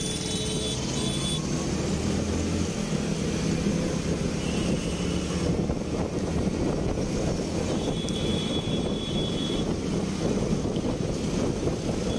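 Commuter motorcycle engine running as the bike accelerates through traffic, with wind rushing over the microphone that grows as the speed climbs.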